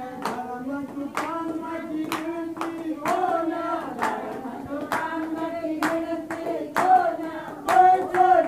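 A group of women singing a Hindi devotional bhajan together, keeping time with steady hand claps.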